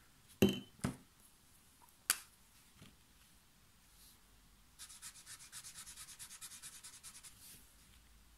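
A few sharp clicks, then from about five seconds in the soft brush tip of an Ecoline watercolour brush pen is scrubbed quickly back and forth on watercolour paper, a fast scratchy rubbing of several strokes a second.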